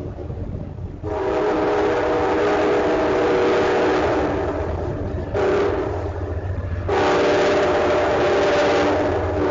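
Train horn sounding a chord of several steady notes over a low rumble from the train: a long blast about a second in, a short one about halfway through, then another long blast.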